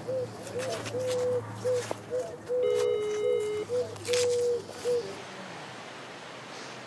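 A dove cooing in a repeating phrase of one longer note and two short ones, with a phone's ringback tone sounding once for about a second near the three-second mark as a call rings out on speaker. After about five seconds the cooing stops and only a steady hiss remains.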